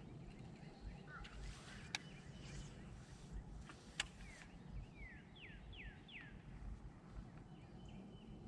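A bird calling: a quick run of four descending chirps about five seconds in, over a low steady rumble. Two sharp clicks, about two and four seconds in.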